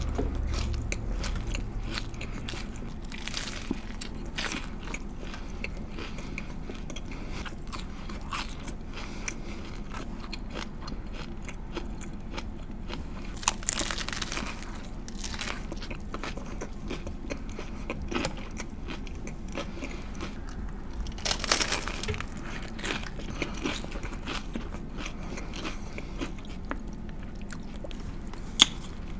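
Close-miked biting and chewing of a lettuce wrap filled with turkey, apple and bacon: crisp crunching and wet chewing with many small crackles, and louder crunching bites about halfway and two-thirds through.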